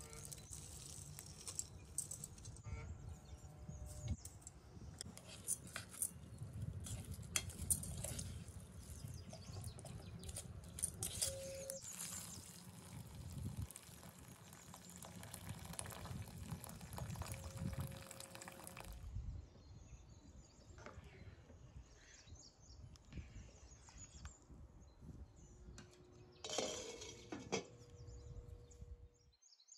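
Cooking sounds at a pot: grains scattered in and water poured over meat, with light clinks of utensils and a glass lid. It gets quieter about two-thirds of the way through.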